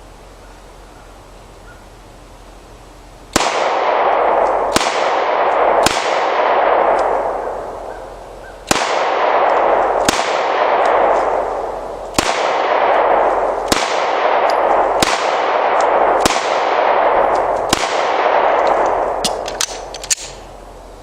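Taurus 9mm pistol fired ten times after about three seconds of quiet, shots one to three seconds apart, each followed by a long echoing tail. A few faint clicks follow the last shot.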